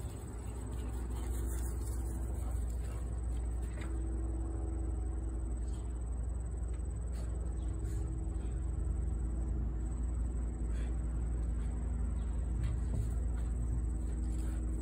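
Steady low outdoor rumble with a faint droning hum, and a few light clicks scattered through it.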